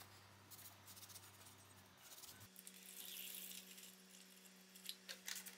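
Near silence: a faint steady hum, with a quiet hiss of iron chloride solution being poured into a plastic tray partway through and a few light taps near the end.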